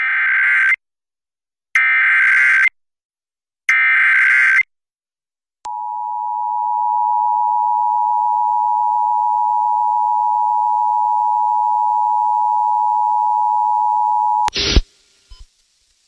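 Emergency Alert System broadcast: three short buzzy bursts of SAME header data, then the two-tone attention signal (853 and 960 Hz sounding together) held steady for about nine seconds and cut off by a brief burst of noise. These are the opening signals of a severe thunderstorm warning.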